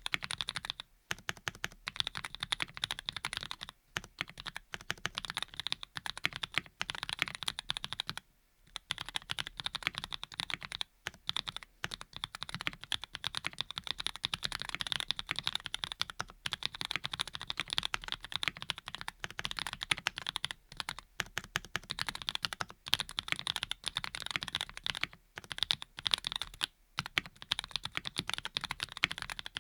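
Continuous fast typing on a Graystudio Think6.5 V2 custom mechanical keyboard with lubed linear switches (Cherry bottom housings, Cream stems and tops), many keystrokes a second with a few short pauses.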